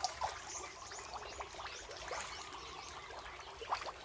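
Shallow muddy water splashing and trickling with many small fish flapping and wriggling in it, a steady patter of little splashes.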